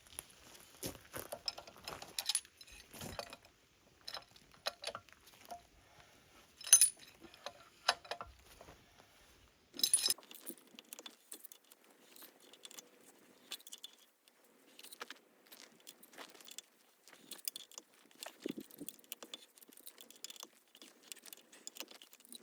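Small metal tools and parts clinking and rattling as they are handled, with scattered light clicks and a few sharper metallic clanks, the loudest about seven seconds in and another around ten seconds in.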